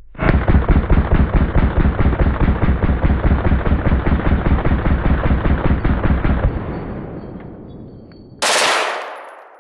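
Full-auto firearm firing one long continuous burst of rapid, evenly spaced shots for about six seconds, then the echo fading. Near the end there is a short, loud hiss.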